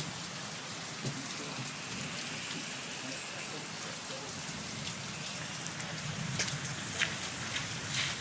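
Heavy rain pouring down in a steady hiss, with a few sharper drop splashes close by near the end.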